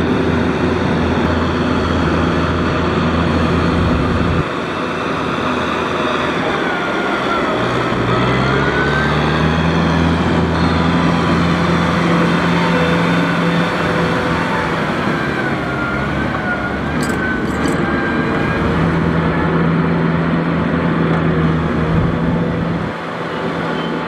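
Kubota tractor's diesel engine running under load as it pulls a disc plough through flooded paddy mud, with muddy water churning and splashing around the discs. The engine note drops about four seconds in and climbs to a steady higher pitch a few seconds later.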